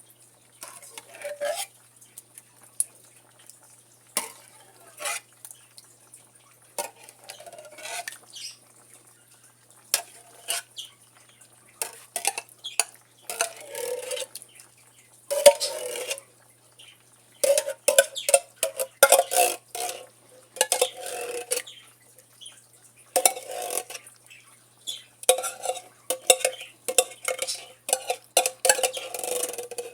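A spoon stirring egg noodles and cream of chicken soup in a crock pot, in irregular bursts of scraping and knocking against the pot, some strokes leaving a short ringing tone.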